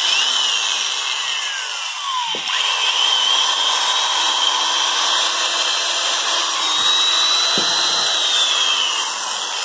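Hitachi two-function 14 mm electric drill running free with no load, a high motor whine. The pitch sags and climbs back about two to three seconds in and falls away again near the end.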